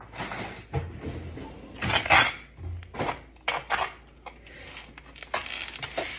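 Kitchen clatter: a spatula knocking and scraping against a glass baking dish as a layer of cream is spread, a series of sharp clinks and knocks, the loudest about two seconds in.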